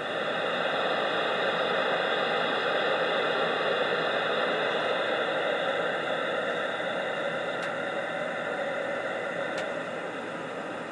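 Steady radio static hissing from a two-way radio's speaker on an open channel with nobody talking, easing slightly partway through, with two faint ticks near the end.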